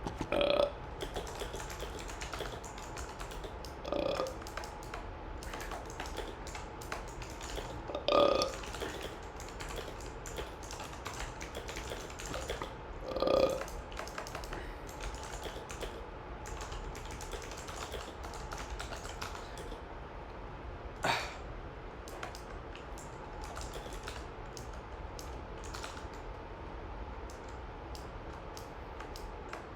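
A person burping repeatedly: four short pitched belches in the first fourteen seconds, the third and fourth loudest, then a shorter one about twenty-one seconds in. Faint computer-keyboard typing clicks in between.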